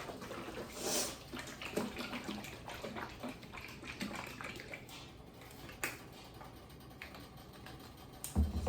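Liquid marinade sloshing as its container is shaken and handled, with scattered clicks and a low thump near the end.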